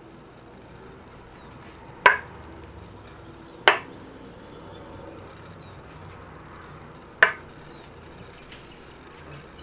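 Small metal ramekins set down one at a time on a wooden board: three sharp clacks, the first about two seconds in, the second a second and a half later, the third about three and a half seconds after that.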